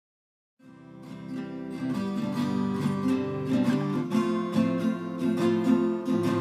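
Background music played on acoustic guitar, plucked notes fading in after a brief silence at the start.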